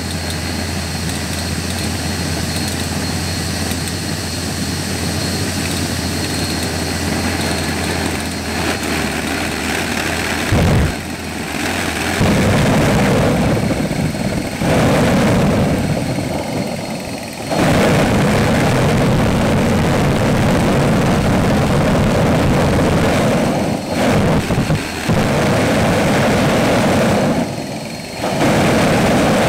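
Vacuum-cleaner blower running with a steady hum, feeding air into a homemade kerosene-burning air-breathing jet engine. About eleven seconds in the engine lights and burns with a loud, harsh roar through its de Laval nozzle, dropping out briefly several times.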